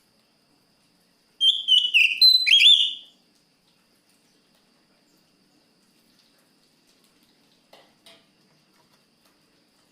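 Oriental magpie-robin (kacer) singing one short, loud phrase of clear whistled notes that slide up and down, starting about a second and a half in and lasting under two seconds. Two faint ticks follow near the end.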